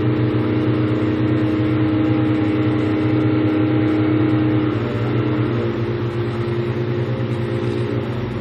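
A large diesel engine running steadily, easing off slightly in pitch and level about five seconds in.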